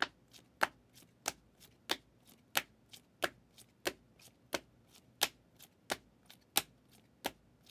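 Steady, evenly spaced clicking: a sharp click about every two-thirds of a second, with a softer click between each pair.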